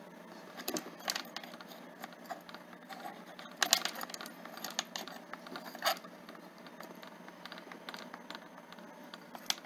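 Homemade bottle-cap fishing lures with metal treble hooks and swivels clinking and jingling as a hand handles them where they hang on wall hooks: scattered light clicks, busiest about four seconds in.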